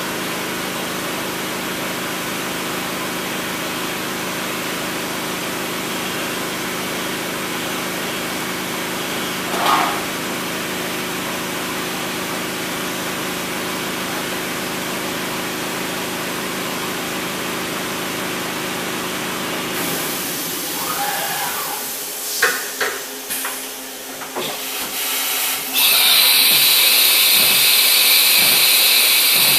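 Milltronics Partner 1 CNC vertical machining center running with a steady multi-tone mechanical hum, with a brief rising-and-falling whine near ten seconds. About two-thirds of the way through the hum stops, a few clicks and knocks follow, and near the end a loud steady hiss starts.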